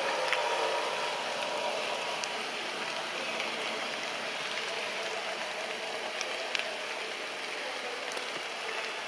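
Steady outdoor background hiss with a few faint clicks.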